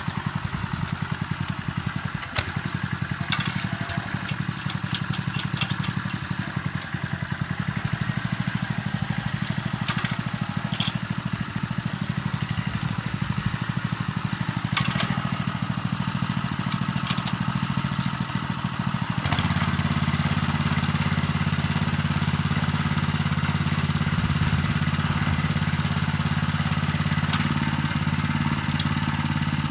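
Small single-cylinder engine of a Patriot Kuban M walk-behind tractor running steadily, with scattered sharp clicks and clatter. About two-thirds of the way through it steps up to a louder, steadier note.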